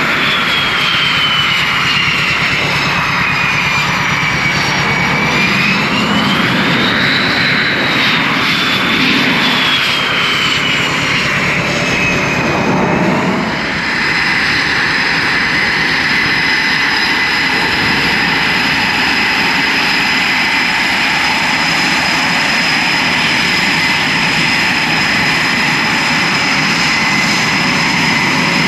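F/A-18 Super Hornet's twin GE F414 jet engines whining at taxi power over a steady jet rush. The high whine sinks, climbs again and sinks once more. After a break about halfway through, it holds one steady pitch.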